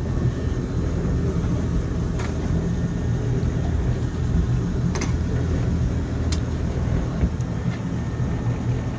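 Motorboat engine running steadily at trolling speed, a constant low drone, with a few brief clicks over it.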